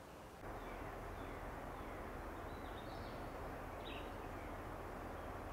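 Faint outdoor ambience: a steady hiss of background noise that gets a little louder about half a second in, with a few faint bird chirps around the middle.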